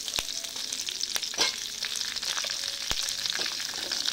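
Sliced onion sizzling and frying in hot oil in a steel pot, being sautéed with dried red chillies and garlic. A perforated steel skimmer stirs it, giving a few sharp clicks and scrapes against the pot.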